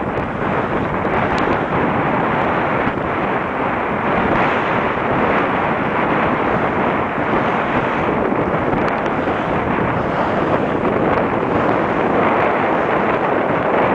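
Loud, steady wind buffeting the microphone, mixed with the rush of water along the hull of a sailing yacht driving fast under sail.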